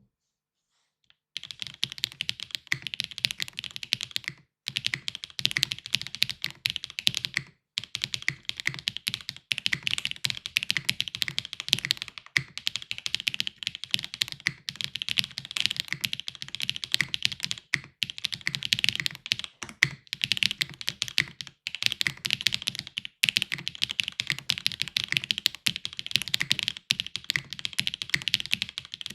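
Continuous fast typing on a Neson 700e custom mechanical keyboard with HMX Cheese switches, GMK keycaps and a leaf-cut, gasket-mounted aluminium plate over case and PE foam: a dense run of key clacks. It starts about a second in and breaks off for a few short pauses.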